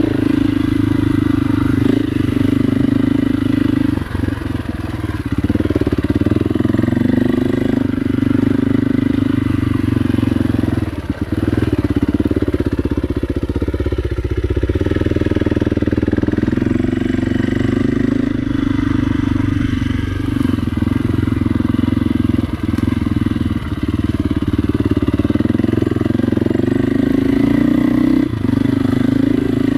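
KTM dirt bike engine running steadily under throttle as the bike rides along a trail, with the engine easing off briefly a few times.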